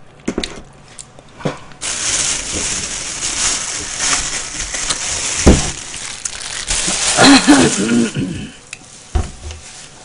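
Loud close-up rustling and crinkling, like material being handled right at the microphone. It starts about two seconds in and stops about eight seconds in, with a couple of dull knocks along the way.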